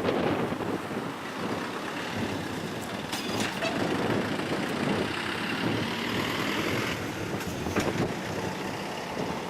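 Road traffic: cars and trucks driving through a street intersection, a steady rumble of engines and tyres with a few short clicks.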